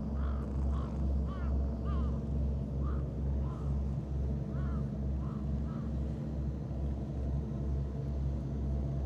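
Steady low hum of an idling engine, with short repeated chirping calls over it, frequent at first and fewer in the second half.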